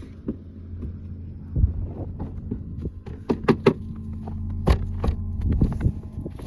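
Steady low hum inside a stopped car, with irregular sharp clicks and crackles over it.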